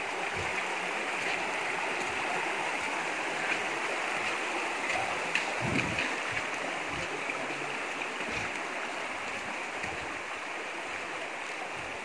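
A river's water rushing steadily, with a few dull low knocks, the strongest about halfway through.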